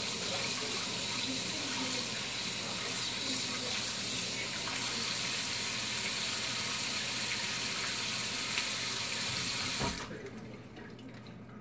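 Kitchen tap running steadily into the sink, shut off abruptly near the end.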